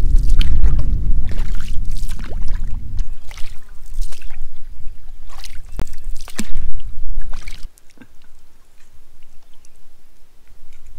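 Canoe being paddled: paddle strokes splashing and water sloshing along the hull, one stroke roughly every second, under a heavy low rumble for the first three seconds. It goes quieter after about eight seconds.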